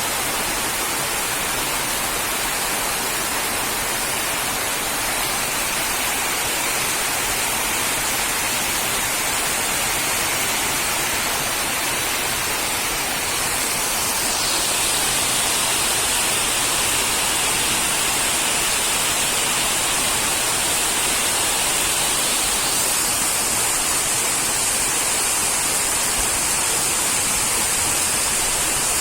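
Heavy rain falling steadily, an even hiss that grows a little louder about halfway through.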